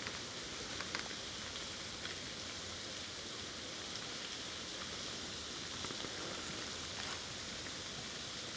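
Quiet, steady outdoor ambience: an even hiss with a few faint ticks scattered through it.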